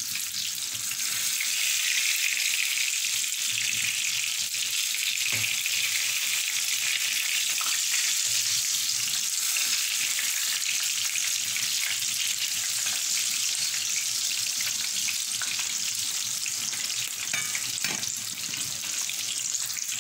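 Batter-coated chillies (chilli bajji) deep-frying in hot oil in a wok: a steady, dense sizzle. A few faint clicks come from the metal ladle as they are turned.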